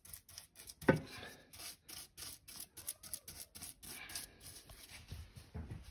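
Paintbrush scraping and dabbing thick black Hammerite paint onto a metal fireplace, a quick run of short scratchy strokes, several a second, with one louder knock about a second in.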